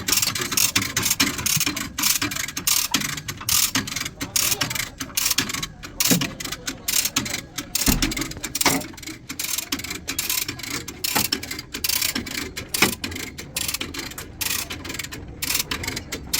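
Rapid, irregular metallic clicking and tapping from tool work on the car's body, a few louder knocks standing out around the middle.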